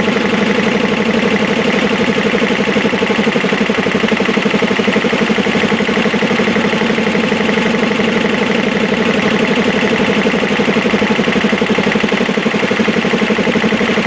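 Electric motor driving two belt-driven air compressors, running steadily with a fast, even pulsing.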